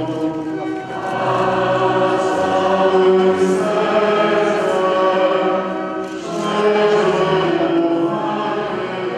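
Choir singing a church hymn in long, sustained phrases, with short breaks between phrases about a second in and again about six seconds in.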